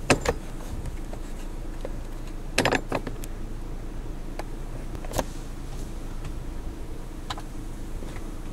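Steady low hum of an idling vehicle, with scattered clicks and knocks from handling, a cluster of louder knocks about two and a half seconds in.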